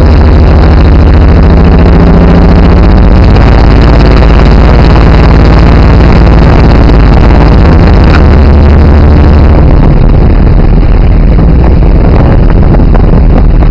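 Jeep Cherokee engine running loudly as it drives along a dirt track, heard from inside the open, windowless cab.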